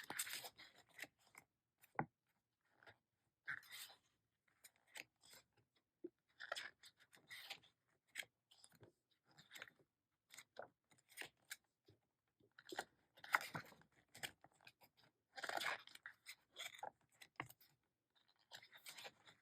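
Faint, irregular paper rustles and light crackles from the pages of a glossy album photo book being handled and turned.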